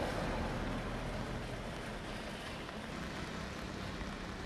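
Steady rush of heavy rain falling over a swollen, flood-high river.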